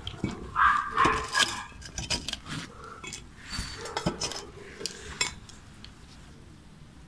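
Kitchen tongs clicking and scraping against an air fryer's perforated basket as chicken fingers are lifted out: a string of light clinks and taps that dies away about five seconds in.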